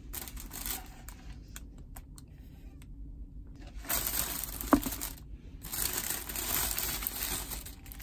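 Handling noise from a plastic takeaway bag and a plastic drink cup being set into a car's cup holder: crinkling and small clicks, with one short sharp ping a little over halfway through.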